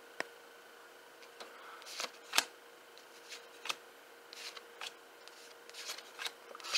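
Cardboard baseball cards being thumbed off a stack one at a time: a series of short, irregular flicks and slides of card on card, the loudest about two and a half seconds in, over a faint steady hum.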